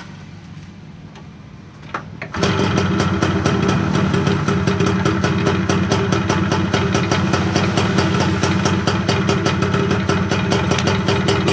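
Yamaha two-stroke motorcycle engine kick-started: a short knock about two seconds in, then it catches on the first kick and runs steadily with fast, even exhaust pulses. It is firing on a substitute RC-type CDI, running on the fuel left in the carburettor.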